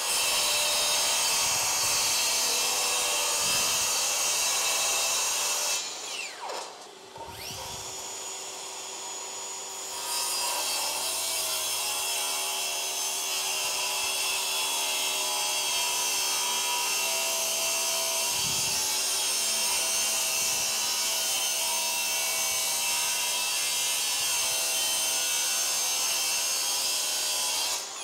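Bosch GKS18V-25GCN 18V brushless 7-1/4-inch circular saw cutting along a wooden board on a guide track, its motor running steadily under load. About six seconds in the saw winds down and falls quiet for a few seconds, then cuts again steadily until it winds down at the end of the cut.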